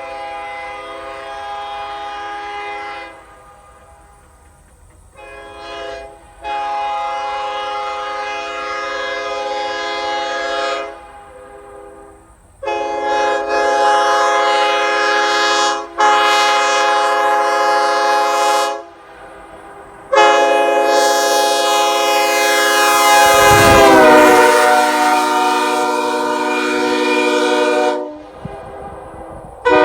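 Nathan Airchime K5HL five-chime locomotive air horn, with a sandcast two-piece 1L bell, sounding a series of separate chord blasts of a few seconds each with short breaks between. The last blast is the longest, about eight seconds, and its chord bends down in pitch about two-thirds of the way through.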